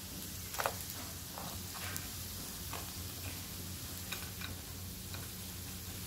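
Metal tongs clicking and tapping against a nonstick frying pan and a plate as fried seitan slices are lifted out: about eight light, irregular clicks, the loudest about half a second in.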